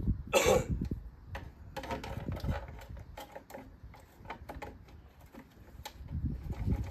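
Gloved hands working on a two-stroke racing outboard while priming fuel to it: a short loud rushing burst about half a second in, then scattered clicks and knocks of parts being handled. The engine is not running.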